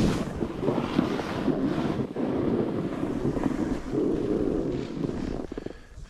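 Snowboard (Never Summer 157 Proto Ultra) edges scraping and hissing over snow on a steep descent, with wind buffeting the microphone. The rush swells and eases turn by turn and drops away briefly near the end.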